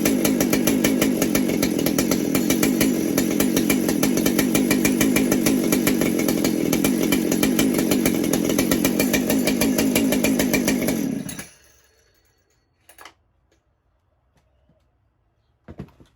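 Ported Husqvarna 395XP chainsaw's two-stroke engine running steadily on the bench after a rebuild, then shut off about eleven seconds in and dying away. Two short clicks follow near the end.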